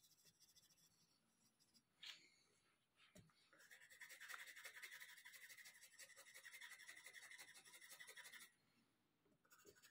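Coloured pencil scratching faintly on paper in quick back-and-forth shading strokes for about five seconds, starting a few seconds in, after a couple of light taps.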